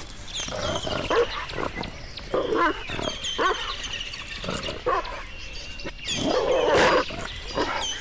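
Pit bull-type dog growling and grunting in short bursts as it plays and splashes in a muddy puddle, loudest about six to seven seconds in.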